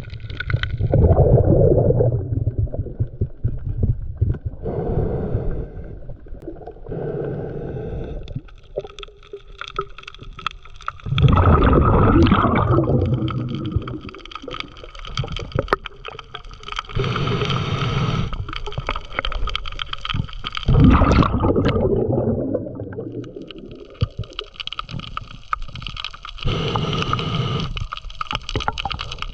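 Diver breathing underwater through scuba gear: gurgling bursts of exhaled bubbles alternate with hissing inhales every few seconds.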